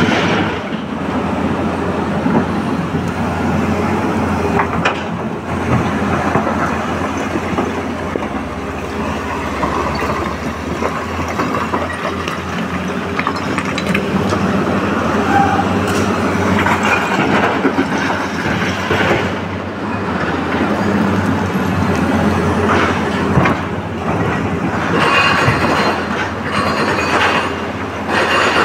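Tata Hitachi tracked excavator's diesel engine running steadily under load while its steel bucket scrapes and clatters through broken quarry rock, stones knocking against each other.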